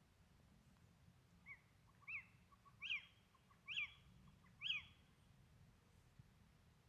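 A bird calling outdoors: a run of five short, sharp notes about a second apart, growing louder from the first to the last.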